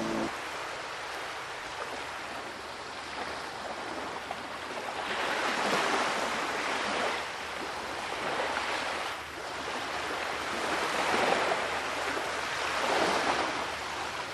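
Sea waves washing: a hiss of surf that swells and fades in slow surges every two to three seconds.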